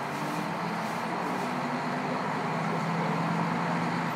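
Diesel engine of a KiHa 54 railcar droning steadily under the noise of the moving train, heard from the seat directly above the engine through a slightly open window.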